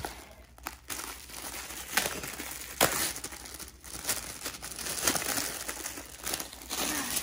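Clear plastic wrapping around a rolled diamond painting canvas crinkling as it is handled and opened, with a few sharp crackles.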